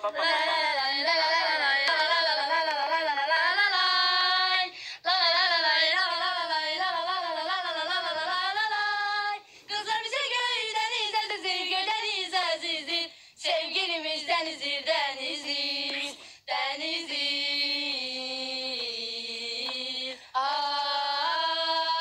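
Three young women singing a song together without accompaniment, in long held notes that waver, with short breaks between phrases.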